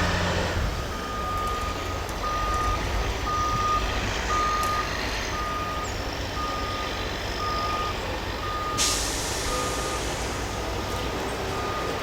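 Heavy machine's reversing alarm beeping about once a second over a steady low engine rumble, with a brief hiss about nine seconds in.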